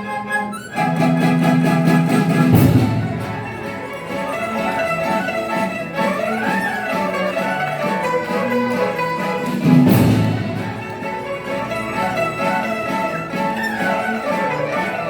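Chinese traditional orchestra playing, with bowed strings carrying a sustained melody and rising and falling runs. Two loud crashes of cymbal and drum, about 2.5 seconds in and about 10 seconds in, ring on after each hit.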